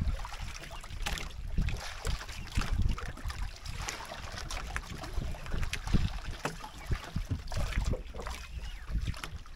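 Water slapping and sloshing against a small boat's hull, with wind buffeting the microphone and irregular low thuds.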